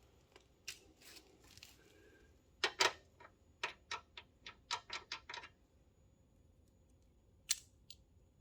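Small, sharp clicks and taps of metal Torx (star) driver bits being handled while picking the right size out of a bit set: a quick run of about a dozen clicks in the middle, then one more near the end.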